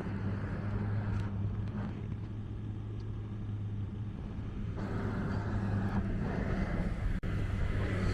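Motor vehicle traffic with an engine running at a steady low hum; the traffic noise swells about five seconds in.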